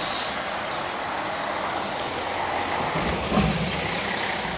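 Coach bus driving slowly past at close range, its engine rumble over steady traffic noise swelling about three seconds in as it comes alongside.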